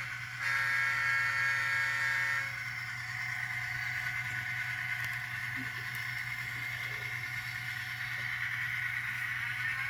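Sound-equipped N scale Atlas SD60 model diesel locomotive running, its sound decoder playing the prime mover through the tiny onboard speaker over a steady hum. A chord of steady tones, the horn, holds for the first two and a half seconds and then stops.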